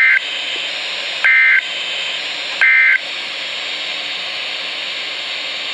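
Emergency Alert System end-of-message signal from NOAA Weather Radio: three short two-tone digital data bursts about 1.3 seconds apart, marking the end of the alert, over steady radio hiss.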